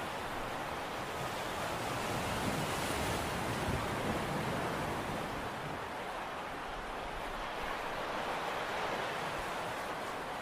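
Steady rushing of wind and sea, with water washing against a breakwater and wind on the microphone. It swells a little about two to four seconds in.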